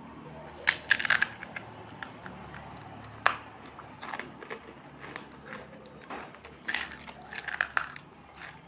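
Close-miked crunching and chewing of crisp pani puri shells, in bursts of crackly bites: a cluster about a second in, single crunches around three and four seconds, and another cluster near the end.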